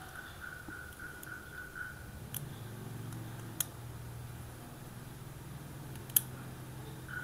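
Small hard clicks of parts being fitted into the magnetic brake side cover of a Daiwa PR100L baitcasting reel: three separate clicks, the sharpest near the end, over a faint low hum.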